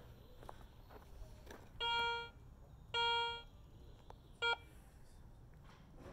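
Handheld metal detector beeping over a buried target: two half-second beeps a second apart, then a short one, all on the same tone. The signal is read as a coin.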